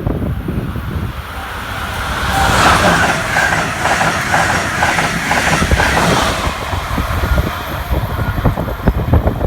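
Amtrak Acela Express trainset passing at speed: a rush of wheel and air noise builds and peaks for a few seconds, with fast clickety-clack of wheels over the rail joints, then eases into a lower rumble as the cars go by.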